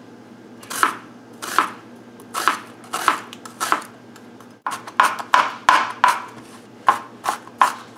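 Chef's knife chopping an onion on a wooden cutting board: separate knocks of the blade on the board, slow at first, then quicker, about three a second, from about halfway through.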